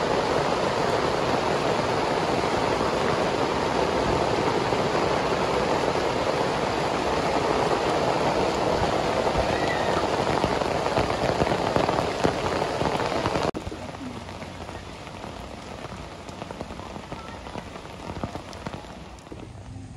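Heavy rain falling, a dense steady hiss. About two-thirds of the way in it cuts suddenly to lighter, quieter rain.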